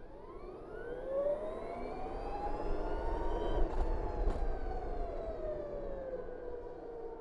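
BMW CE 04 electric scooter's motor whining as it accelerates, the pitch rising for about three seconds and then falling slowly as it eases off, over road and wind rush. Two sharp clicks come near the middle.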